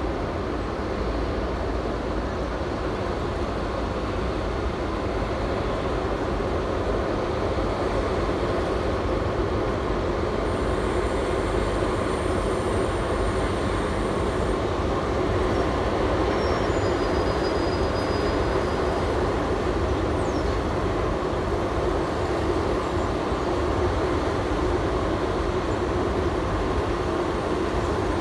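Two Class 90 electric locomotives hauling a container freight train at low speed, a steady rumble of motors and wheels on rail that grows slightly louder as the train comes nearer. A faint high wheel squeal sounds for a few seconds midway.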